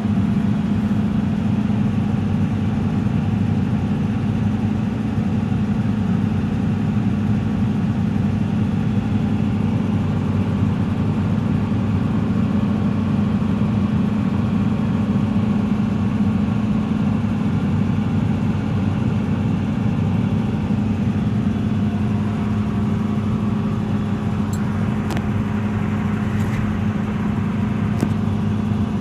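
Hitachi Zaxis 210-5G excavator's four-cylinder diesel engine running at a steady speed, with a few sharp clicks near the end.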